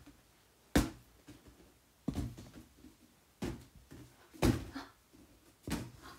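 A latex balloon being batted upward by hand: five dull thumps roughly a second apart.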